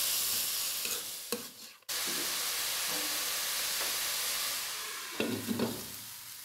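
Vermicelli frying in ghee in a pan: a steady sizzle, with a spatula stirring and scraping through it. The sizzle drops out briefly about two seconds in. Near the end a steel lid clatters in a few quick knocks as it is set on the pan.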